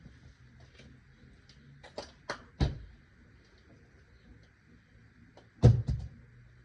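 A few sharp knocks and clunks, three in quick succession with the last the loudest, then two more close together near the end, over a faint steady hum.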